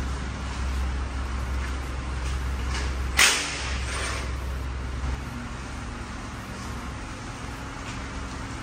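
Steel bars of a motorcycle shipping crate being handled and pulled apart, with one sharp metallic clank about three seconds in that rings briefly. A steady low hum runs underneath and stops about five seconds in.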